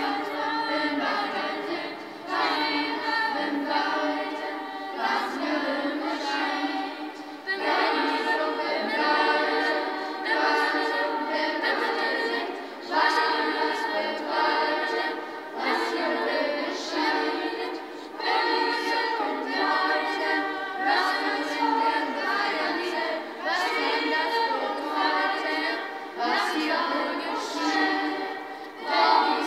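Children's choir of boys and girls singing a song together in unison, line by line with short breaks for breath between phrases.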